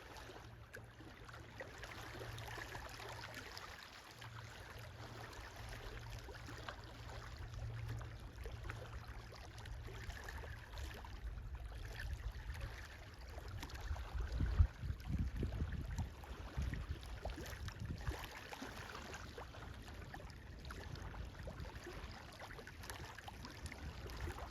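Wind rumbling on an outdoor microphone over a steady rushing hiss, with a stronger gust about fourteen to sixteen seconds in.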